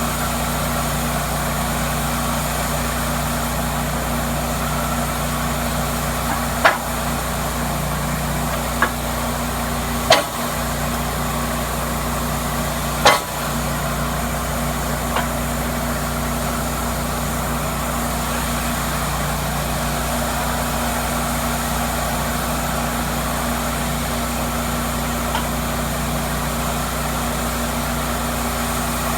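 Cook's MP-32 sawmill running with a steady hum, with four short sharp knocks between about six and thirteen seconds in.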